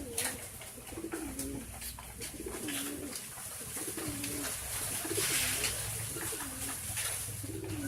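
Domestic pigeons cooing over and over, a low call about once a second, with scattered sharp clicks.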